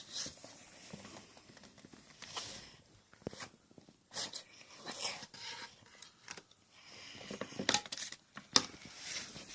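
Packaging crinkling and tearing, with scattered sharp clicks and knocks of handling.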